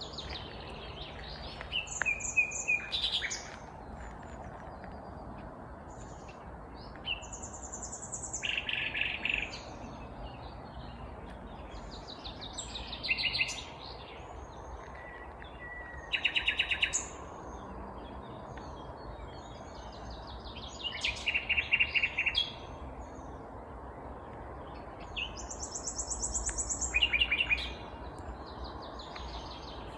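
Nightingale singing: loud phrases of rapidly repeated notes and high whistles, about six of them, each a second or two long and a few seconds apart.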